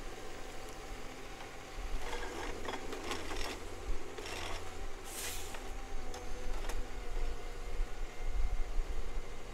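A forestry machine's engine running steadily with a held hydraulic whine, and several short hissing bursts between about two and six seconds in.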